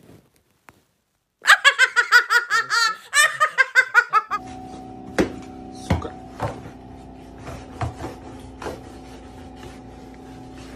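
A person laughing hard in a quick stuttering run of bursts for about three seconds. Then a steady hum with a few scattered sharp knocks.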